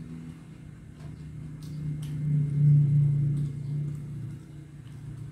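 A low engine hum, like a vehicle passing, that swells to a peak about halfway through and fades again over about three seconds, with a few faint clicks.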